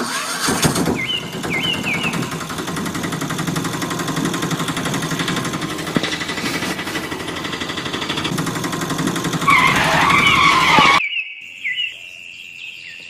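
Engine sound of a small motor vehicle, an auto-rickshaw sound effect laid over the toy, running steadily, with a louder wavering squeal near the end. It cuts off abruptly about eleven seconds in, leaving birds chirping.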